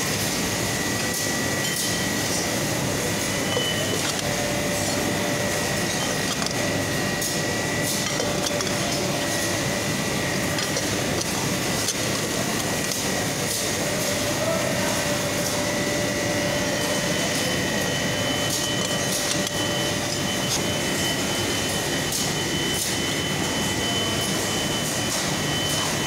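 Steady machinery noise on a fridge/AC compressor assembly line: an even hum with a couple of steady whining tones and scattered light clicks and knocks. A higher whine joins about two-thirds of the way through.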